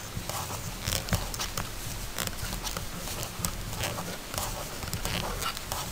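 Circular knitting needles clicking and yarn rustling as stitches are worked by hand: irregular light ticks and scrapes.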